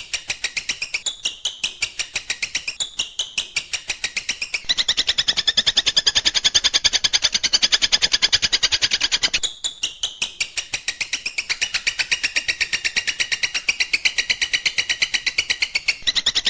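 Long-tailed shrike (cendet) singing a fast, sharp chatter of repeated high notes, about five a second at first. About five seconds in the chatter turns quicker and louder, with a brief break near ten seconds.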